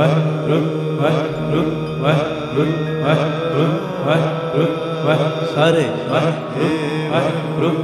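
Sikh kirtan: a devotional hymn sung over a steady drone, with regular drum strokes about twice a second.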